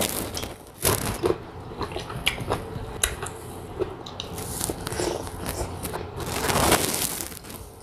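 A person biting and chewing slices of unripe sour mango dipped in chili sauce, close to the microphone: many short wet clicks of mouth and fruit, with a longer noisy stretch about six seconds in.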